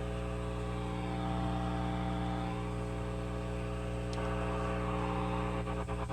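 Revv G20 guitar amp hissing and humming steadily, with no guitar plugged in and the aggressive switch engaged. Near the end a rapid pulsing starts, about six beats a second. This is the fault the owner is trying to trace, unsure whether it is normal or his amp is faulty.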